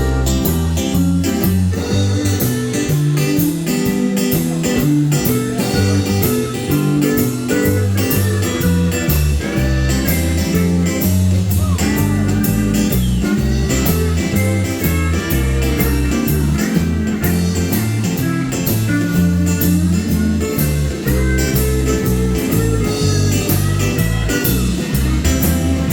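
Country band playing an instrumental break: a lead guitar carrying the melody with sliding, bending notes over bass and a steady drum beat.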